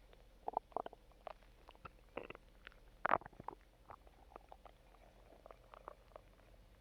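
Human stomach growling: a run of short, separate gurgles and squeaks, with the loudest gurgle about three seconds in.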